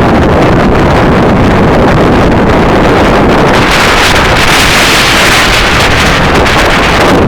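Strong wind buffeting the microphone on a boat under way, a loud continuous rumble, with a rushing hiss that swells up through the middle and eases off again.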